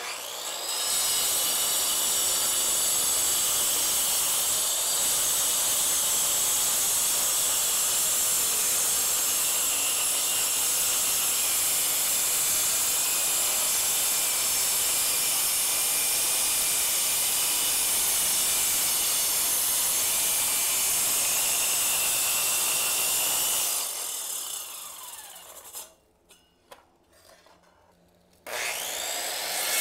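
Sidewinder circular saw with a Bosch 7-inch segmented diamond blade cutting wet through a concrete floor slab: a steady, loud grinding whine that holds for about 23 seconds. The trigger is then released and the motor winds down with a falling whine. A few light knocks follow, and a steady running sound picks up again near the end.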